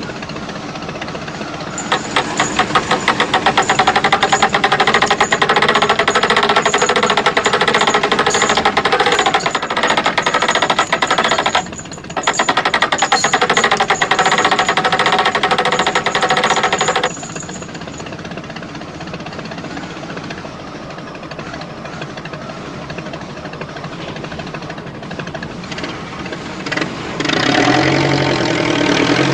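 Small petrol engine of a power saw running hard with a fast, rattling beat for about fifteen seconds, dipping briefly partway through, then dropping to a quieter steady run. A deeper engine sound picks up near the end.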